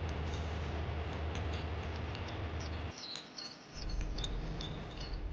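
Steady rushing background ambience with scattered short, high chirps. A low hum underneath drops out for under a second about three seconds in.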